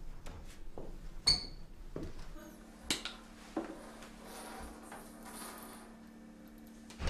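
Glass clinking, with one brief ringing clink about a second in, then a few light knocks as a small glass pill bottle is handled and opened, and pills are tipped out into a palm near the end.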